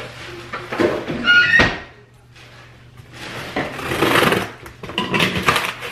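Cardboard shipping box and its packing being opened and handled: irregular rustling and scraping of cardboard and packaging.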